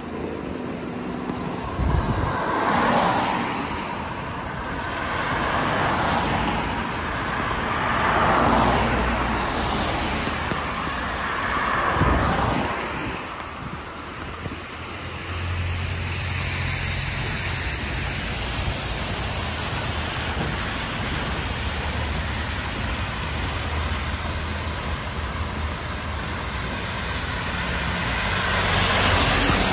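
Road traffic on a wet road: cars pass one after another, each a swell of tyre hiss that rises and fades. From about halfway a steady low engine drone sets in, and a double-decker bus passes close near the end.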